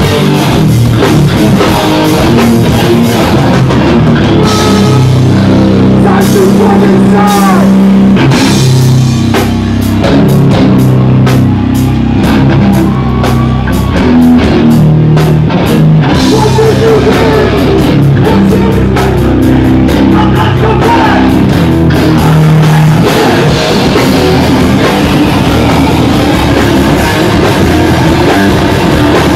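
A hardcore band playing live at full volume, with distorted guitar, bass and drums. There is a stretch of fast, rapid drum hits about ten seconds in.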